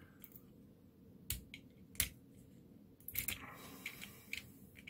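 Small plastic clicks and snaps as a freshly 3D-printed print-in-place toy is handled: brim and support standoffs being peeled off its legs. Two sharp snaps, then a quick run of clicks about three seconds in.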